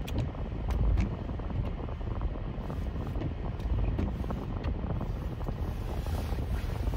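Inside a car in the rain: the car's steady low rumble, with scattered sharp ticks of raindrops hitting the roof and glass.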